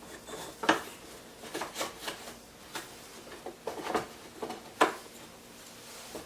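Small wooden spacer blocks and dowels being set into a wooden panel clamp: a string of light, irregular wooden knocks and clicks, the sharpest about a second in and near five seconds.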